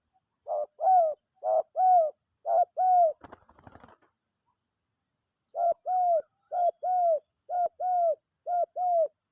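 A dove cooing in repeated two-part phrases, each a short note followed by a longer arched one: three phrases, a brief rattle of clicks, a pause, then four more.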